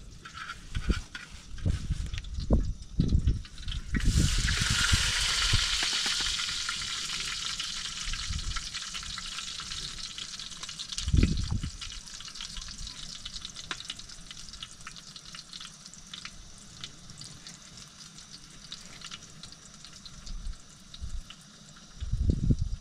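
Food sizzling in a pan on a small gas burner. The sizzle starts suddenly about four seconds in, crackling, and slowly dies down. A few dull thumps come before it and another comes about eleven seconds in.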